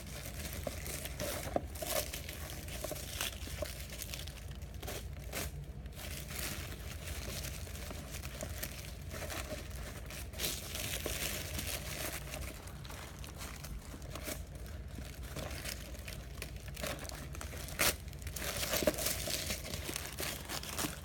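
Action-figure packaging being handled as the figure is worked out of its box: steady crinkling and rustling, broken by frequent short sharp crackles.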